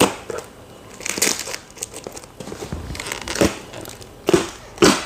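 Plastic packaging crinkling and packing tape being pulled off a parcel, in irregular rustling bursts, the sharpest near the end.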